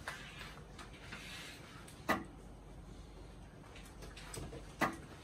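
Zebra industrial label printer running its RFID tag calibration, a quiet mechanical whir with two sharp clicks, about two seconds in and near the end.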